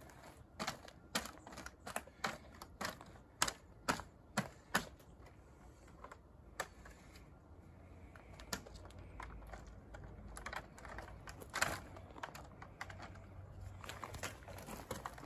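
Recycled-plastic True Grid paver grids clacking and snapping as they are set down on gravel and linked together by hand: a run of sharp, irregular plastic clicks that thins out about halfway and picks up again near the end.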